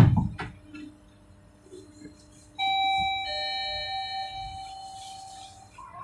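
A sharp knock at the very start, then about two and a half seconds in a two-note electronic ding-dong chime from the Bombardier NGT6 tram's on-board passenger system, the notes ringing on and fading over about three seconds.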